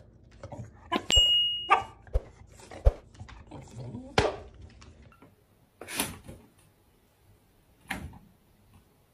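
Two Shar-Pei dogs with their heads raised, giving a few short high-pitched whining howls, the longest about a second in.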